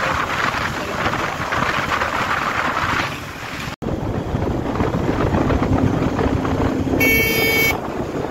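Wind buffeting the microphone over the motorcycle's running engine and road noise, broken by a brief cut about halfway through. Near the end the bike's horn beeps once, for under a second; the rider wants the horn replaced.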